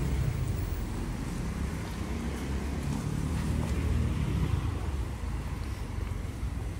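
Light city street traffic: car engines and tyres on the road, with one car passing close by about halfway through.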